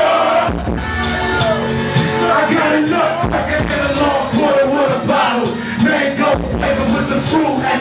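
Live hip-hop performance: a rapper shouting lyrics into a microphone over a loud backing beat through the club PA, with the crowd yelling along.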